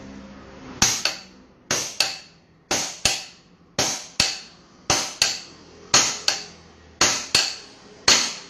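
Hammer striking a steel crankshaft-bearing tool, sharp metallic blows in pairs about once a second, with a short ring after each.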